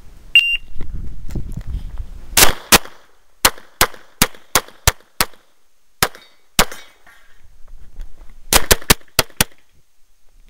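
Electronic shot timer gives one short start beep, then a pistol fires about fifteen shots, mostly in quick pairs: a run of pairs, a pause, then a last fast string near the end.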